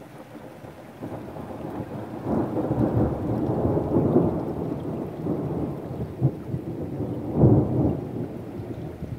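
A long roll of thunder that swells over the first few seconds and rumbles on, with a sharp clap about seven and a half seconds in, then dies away near the end. Rain falls steadily underneath.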